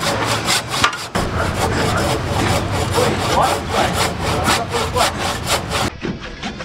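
Handsaw cutting through a thick keel timber in steady back-and-forth strokes, about three a second, with a brief break about a second in. The sawing gives way to a different, duller sound in the last half-second.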